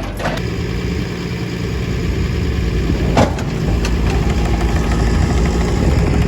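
Tractor engine running steadily while driving a small square baler, with a single sharp knock about three seconds in.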